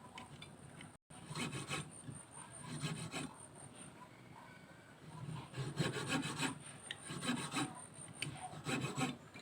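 Hand tool scraping and rasping across wood in repeated back-and-forth strokes, with short pauses between groups of strokes, while a notch is cut into the timber.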